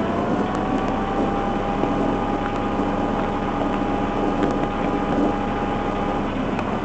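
A motor vehicle running, with a steady low hum under noise. A tone rises just before the start, holds at one pitch and stops shortly before the end.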